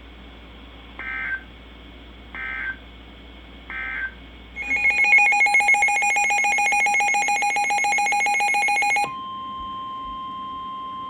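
Emergency Alert System signalling: three short squawks of SAME end-of-message data bursts, then a loud buzzy electronic alert tone pulsing rapidly for about four seconds. This cuts off about nine seconds in to a steady high tone, the NOAA Weather Radio 1050 Hz warning alarm.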